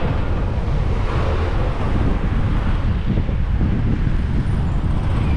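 Steady street traffic noise of car engines around a moving bicycle, with wind rumbling on the microphone. No single sound stands out.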